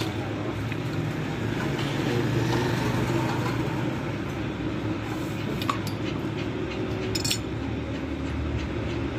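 Steady low rumble of vehicle noise, with a few light clinks of hand tools on metal.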